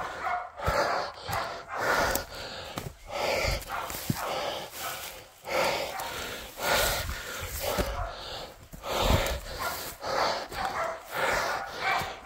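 Pig dogs barking at a bailed-up wild pig, the bark that tells the hunters the dog is holding the pig at bay. Over it, a person's heavy breathing comes in rhythmic bursts, with footfalls and brush as he hurries uphill through scrub.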